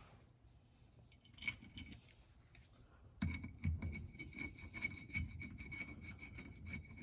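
Light clicking, scraping and knocking of small metal clutch parts being handled and fitted by hand. About three seconds in, the clicks and knocks come thicker, over a faint steady high whine.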